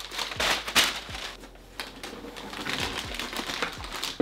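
Crumpled white packing paper crinkling and rustling as it is pulled out of a cardboard box, in a series of uneven crackles, the loudest just under a second in.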